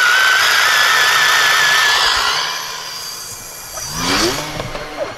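Electric RC airplane motor and propeller running at high throttle with a loud, high, slightly wavering whine, which dies away about two and a half seconds in.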